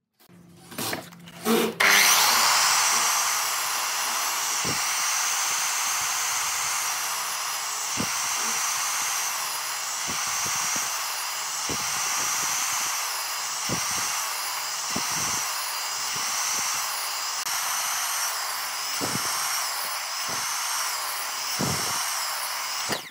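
Sliding compound miter saw making repeated kerf cuts across a wooden beam to waste out a notch. After a few knocks it starts about two seconds in and runs on, its high whine dipping and recovering as the blade goes into the wood again and again, with a dull thud every second or two.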